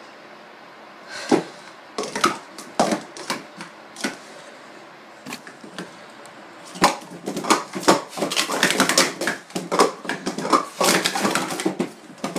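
Plastic sport-stacking cups clacking against each other and the table as they are stacked up and down: a few scattered clicks at first, then a fast, dense run of clatter through the second half.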